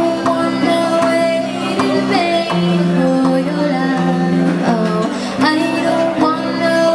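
Background music: a song with a singing voice over sustained chords.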